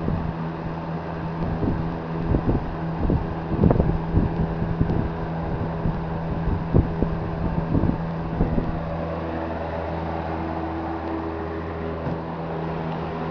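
GE model W22 box fan running, its motor giving a steady hum. Its airflow buffets the microphone in uneven gusts that settle to a smoother sound about nine seconds in.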